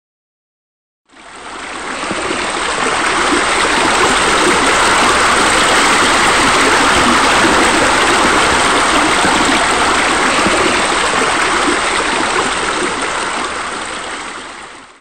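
Steady rush of running water, like a stream or waterfall, fading in about a second in and fading out just at the end.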